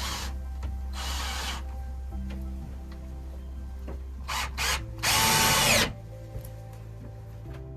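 Cordless drill-driver running in short bursts while driving screws, the last and loudest burst about a second long with the motor's pitch shifting as it loads.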